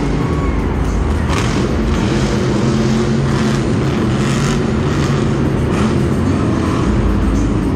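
Monster Mutt Dalmatian monster truck's supercharged V8 engine running loud as the truck drives its freestyle run, heard from the stands of a domed stadium.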